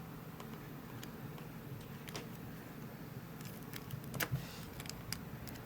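Faint, scattered small metallic clicks and scrapes of a lock pick working the pins of a Winkhaus Titan euro cylinder, with a quicker run of clicks from about three and a half to five seconds in.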